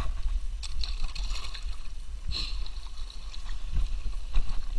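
Kayak paddle blades dipping into calm water with several short splashes, over a steady low rumble.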